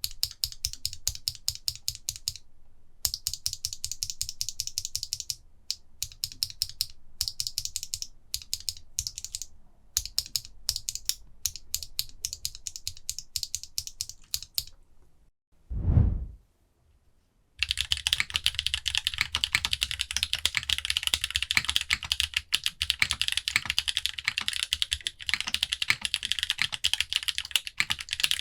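Lubed Holy Panda tactile mechanical keyboard switches being pressed in short runs of clicks with brief pauses for the first fifteen seconds. Then comes a single short low thump, and from about eighteen seconds in continuous fast typing on the mechanical keyboard.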